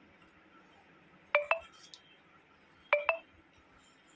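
A short double beep, repeated three times about a second and a half apart.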